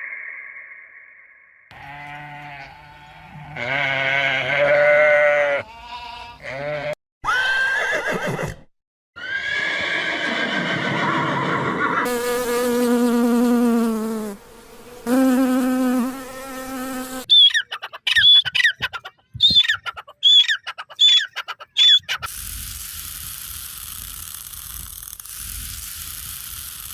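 A series of different farm animal calls cut one after another: several drawn-out pitched calls, then a run of short, quick high chirps, then a steady hiss near the end.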